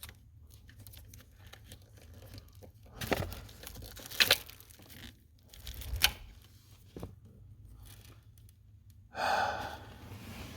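Tape being pulled and peeled off a car wiring harness in several short tearing pulls, with a longer rip near the end, amid wire-handling clicks and rustles.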